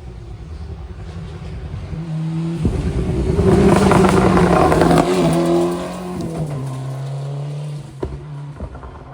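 Historic rally car at full throttle approaching and passing close by. The engine note swells to its loudest a few seconds in, drops in pitch as the car goes past, and fades as it pulls away, with two brief breaks in the note near the end.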